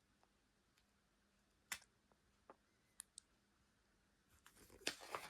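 Near silence broken by a few faint single clicks, then a short stretch of rustling and clicking near the end as a paper book's pages are handled.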